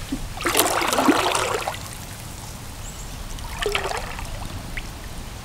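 Kayak paddle strokes: water splashing and dribbling off the paddle blade, a longer stroke about half a second in and a shorter one near four seconds, with a low hiss of moving water between.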